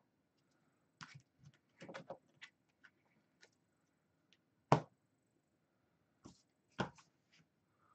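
Scattered light clicks and taps of trading cards and a plastic top-loader being handled and set down on a table mat, with one sharper tap about halfway through and another near the end.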